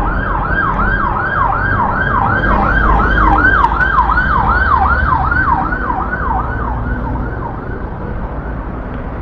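Emergency vehicle siren in a fast yelp, rising and falling about three times a second and fading away near the end, over low street-traffic rumble.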